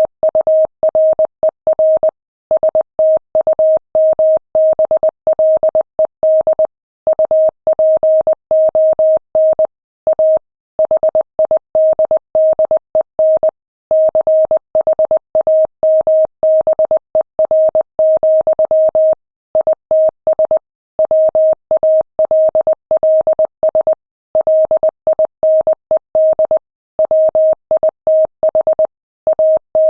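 Morse code sent at 20 words per minute: one steady medium-pitched tone keyed on and off in quick dots and dashes, with slightly longer gaps between words.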